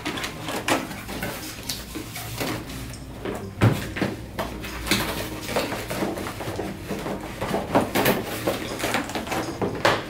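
Cardboard packaging being handled: the flaps of a large cardboard box opened and the inner boxes slid out, giving irregular scrapes, rustles and knocks.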